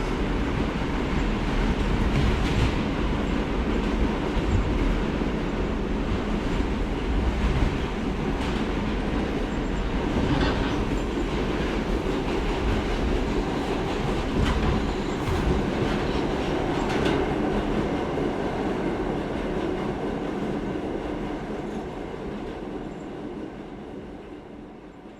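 New York City Subway train running on the tracks, with steady running noise and irregular clacks of the wheels over rail joints. The sound fades out over the last few seconds.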